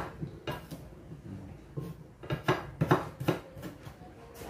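Kitchen knife chopping a red onion on a wooden cutting board: a few sharp knife strikes on the board early, then a quicker run of strikes in the second half.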